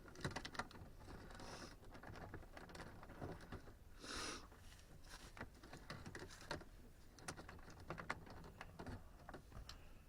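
Faint scattered clicks and taps of hands working at a plastic door trim piece, with two brief scrapes about a second and a half in and about four seconds in, as the piece is pulled against a screw still holding it.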